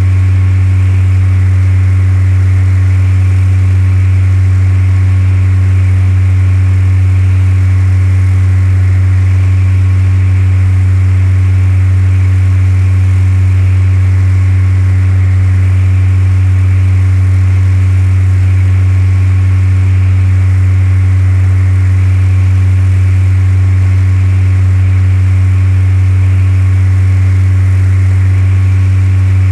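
Cessna 172's piston engine and propeller running at steady power: a loud, even drone with no change in pitch.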